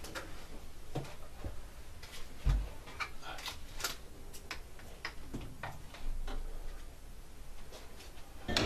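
Irregular light clicks and taps of decorations being handled and set in place on a home altar, with one dull thump about two and a half seconds in.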